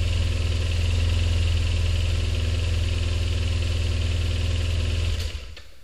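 Honda Elite SA-50 scooter's small two-stroke single running steadily at an even idle; it stops about five seconds in.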